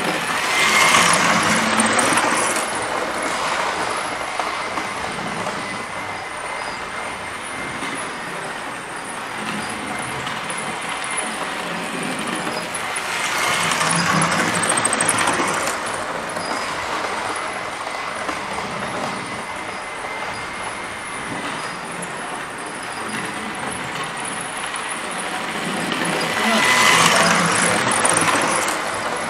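OO-gauge model train running laps on floor-laid track: the rumble and clatter of its motor and wheels swells three times, about every 13 seconds, as it passes close by, then falls back between passes.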